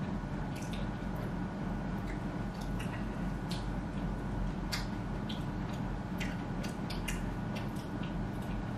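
Soft eating sounds: small, wet clicks and smacks at irregular moments over a steady low room hum.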